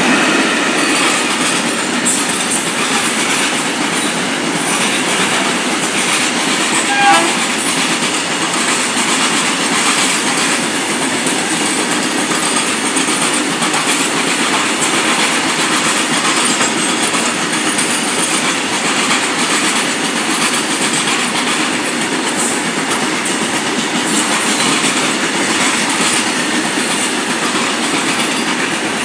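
A long freight train of open box wagons passing close by: a steady rumble and clatter of steel wheels on the rails. A short high tone sounds about seven seconds in.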